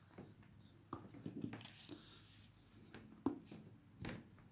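Faint handling of a ballpoint pen and a sheet of paper on a table: a few light clicks and taps, and a soft rustle as the paper is slid along.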